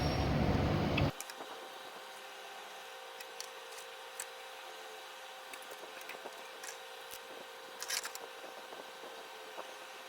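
A steady rushing noise that cuts off abruptly about a second in. After it comes a faint steady hum with scattered light clicks and taps of small tools.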